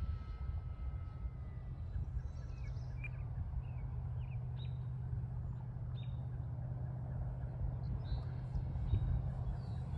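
Steady low rumble of wind on the microphone. Over it, the faint whine of a distant E-flite Air Tractor's electric motor fades out after about two seconds, and birds chirp several times.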